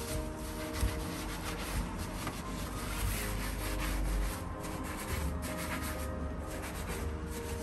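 Sponge scrubbing a lathered stainless-steel gas hob: irregular back-and-forth rubbing strokes of sponge against wet steel.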